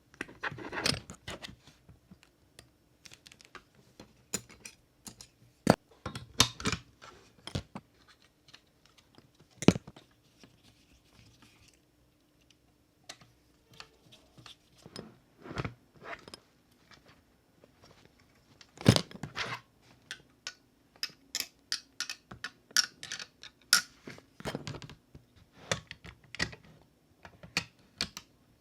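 Irregular light clicks and taps from the small parts of a 1:18 scale model car being handled and fitted together by hand.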